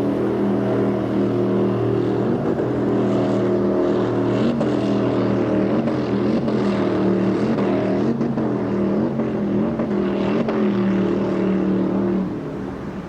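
Motorboat engine running steadily, its pitch wavering up and down; it drops off a little near the end.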